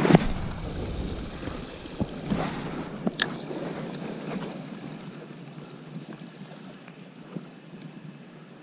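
A lure cast from a fishing rod: a loud rush of air across the microphone as the arm swings, then a few sharp clicks about two to three seconds in, over a steady wash of calm sea water lapping against the rocks.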